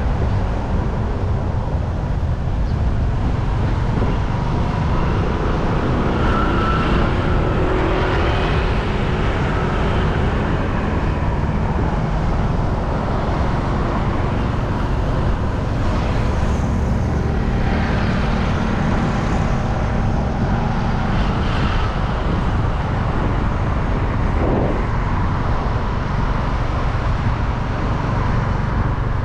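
Road traffic: a steady low rumble, with several vehicles passing one after another.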